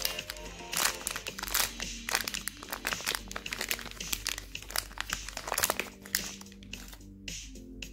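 Foil-lined plastic chocolate-bar wrapper crinkling and crackling as it is pulled open by hand, over background music.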